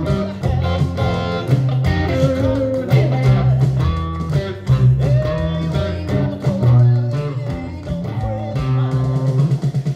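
Les Paul–style electric guitar playing a blues lead with bent notes, low notes ringing underneath.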